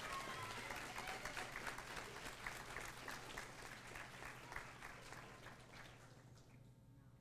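Audience applauding, the clapping fading away over about six seconds.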